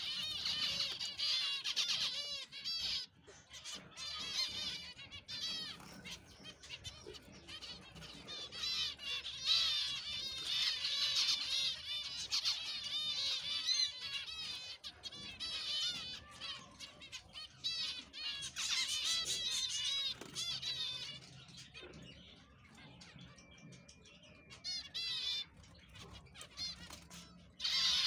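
A colony of zebra finches calling together: many short chirping calls overlapping in a busy chatter, which thins out for a few seconds around twenty seconds in and picks up again near the end.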